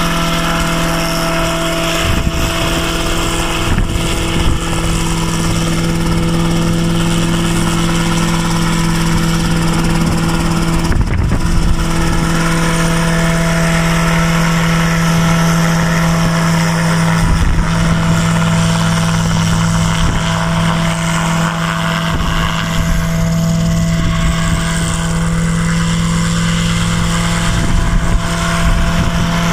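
Homebuilt single-seat helicopter's engine and main rotor running at flight power while it hovers, a loud steady hum holding one pitch.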